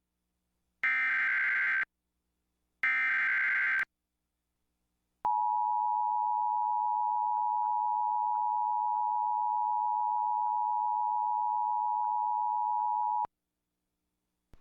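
Emergency Alert System SAME header: two one-second bursts of digital data tones with short gaps between them. About five seconds in comes the EAS attention signal, a steady two-tone alert beep held for about eight seconds, which cuts off sharply. Together they announce a severe thunderstorm warning.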